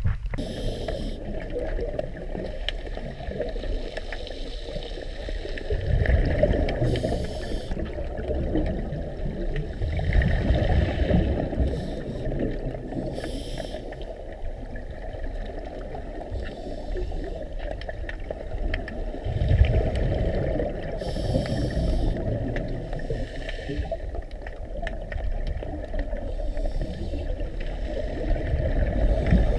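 Muffled underwater rumble picked up by a camera on a scuba dive, with a diver's exhaled bubbles breaking out in short hissing, gurgling bursts every few seconds.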